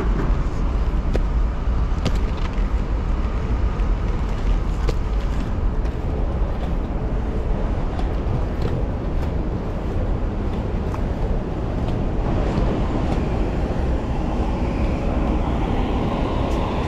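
Inline skate wheels rolling steadily over pavement at speed, with wind rumbling on the microphone and city traffic around, and a few sharp clicks as the wheels cross cracks. The traffic grows louder over the last few seconds as a bus runs alongside.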